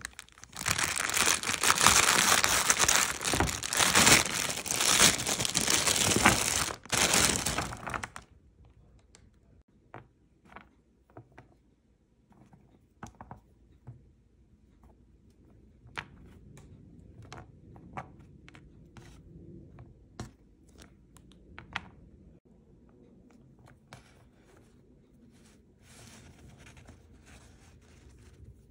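Thin plastic produce bag of green beans crinkling loudly as it is opened and handled, stopping abruptly about eight seconds in. After that, faint scattered light taps and ticks as the loose beans are handled on a wooden cutting board.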